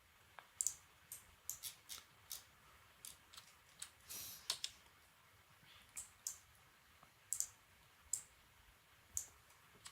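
Faint, irregular clicks of a computer mouse and keyboard, about fifteen spread unevenly over the stretch.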